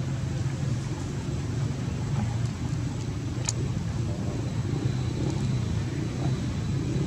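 Steady low rumble with a brief sharp click about three and a half seconds in.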